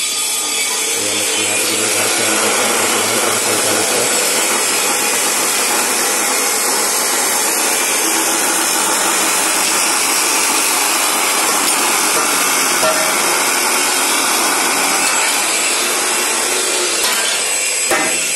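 DeWalt abrasive chop saw cutting through square steel tube: a steady, loud grinding of the spinning cut-off disc biting into the metal.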